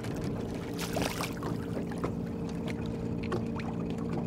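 A trolling boat's outboard motor running with a steady low hum, with water splashing and lapping at the hull, loudest about a second in.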